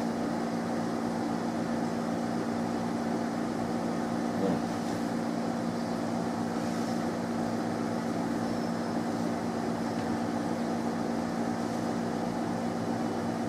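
Steady hum of a window-type air conditioner running, with a constant low tone and its overtones over an even whir.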